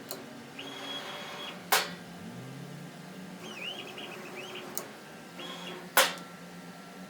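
Langmuir Systems CNC table's stepper motors whining as the gantry moves, the pitch stepping up and down as they speed up and slow down. Two sharp clacks, about two seconds in and again near the end, come from the 6 V solenoid pushing the Sharpie down or lifting it.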